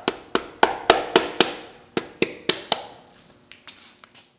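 Hammer striking the connecting rod cap of a VW/Audi 1.8T 20-valve engine to shock it loose from the rod: sharp knocks about four a second in two runs, then a few faint clicks near the end.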